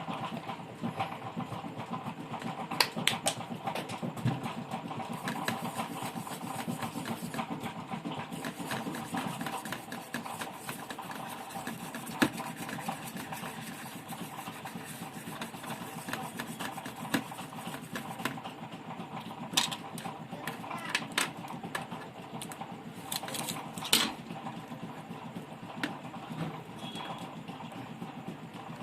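Scattered sharp clicks and taps of small parts and tools being handled at an electronics repair bench, over a steady background hum.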